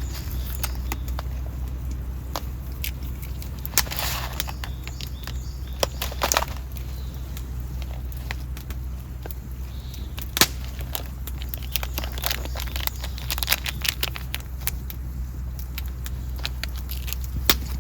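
Scattered sharp clicks and knocks, irregularly spaced, over a steady low hum.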